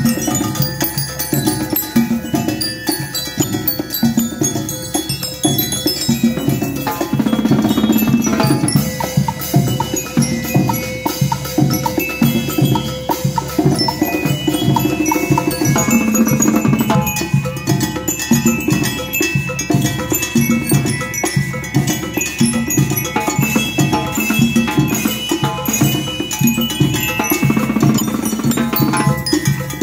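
School rhythmic band playing: drums keep a steady beat under a ringing melody on metal bell lyres.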